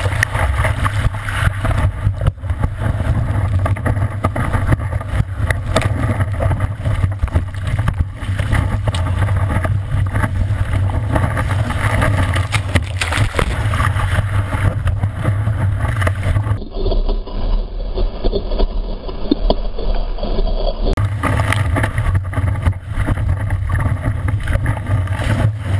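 Steady rush of water and wind against a surfboard-mounted camera's microphone while riding a wave, with a constant low rumble. For about four seconds past the middle the sound turns duller and muffled, then comes back to the full rush.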